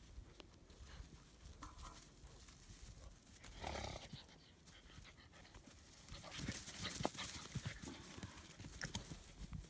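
German Shepherd puppies playing close by: panting and scuffling, with scattered light taps and clicks of paws and claws on concrete. There is a louder scuffle about four seconds in, and the activity grows busier in the second half.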